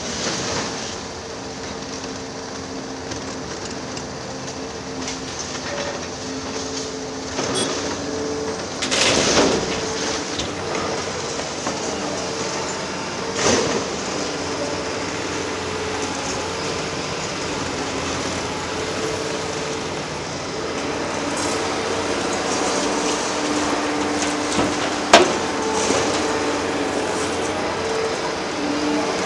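Liebherr R 946 crawler excavator at work: diesel engine running steadily with a hydraulic whine, broken by a few sharp knocks, the loudest near the end.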